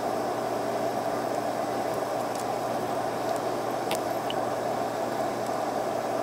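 A steady mechanical hum with an even hiss, unchanging throughout, with a few faint ticks near the middle.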